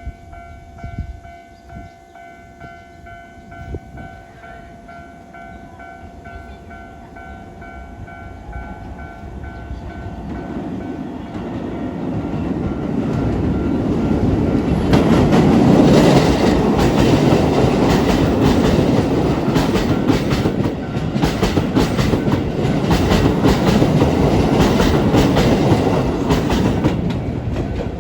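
A Japanese level-crossing warning bell rings with a pulsing two-tone chime. An electric train then approaches and passes over the crossing, growing louder for several seconds, with its wheels clattering over the rail joints.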